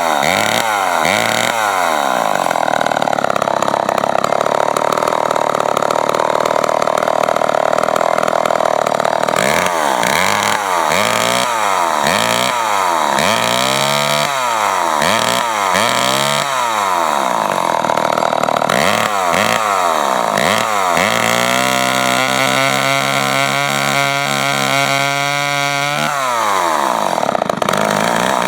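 Remington SL9 two-stroke chainsaw engine running and revved repeatedly with the throttle, its pitch sweeping up and down. It is held at high speed for several seconds, drops to a steady idle near the end, then revs up again.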